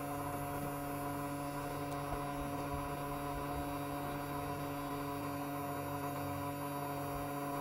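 Steady electric hum made of several constant tones, with no change in pitch or level.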